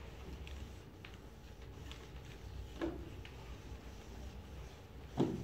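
Felt-tip marker drawing on flip-chart paper: faint short scratchy strokes, one after another, over a low steady room hum, with a brief louder sound near the end.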